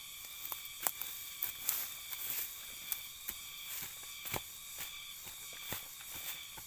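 Short-handled hoe knocking and scraping into soil and crunching through dry mulch, irregular sharp strikes a few times a second, over a steady insect drone.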